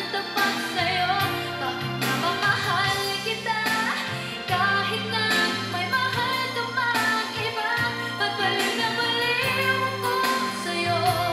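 A song with a singing voice over instrumental backing, played through a pair of Yamaha NS-10MMT bookshelf speakers driven by a Sansui AU-117 II amplifier and heard in the room.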